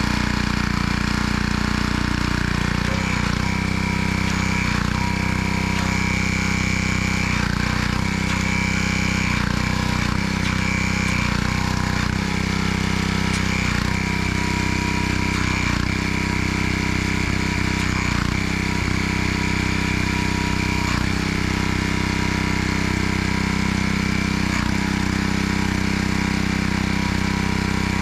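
Pressure washer running steadily while it pumps water into an air compressor tank for a hydrostatic pressure test, bringing the tank up toward 225 PSI.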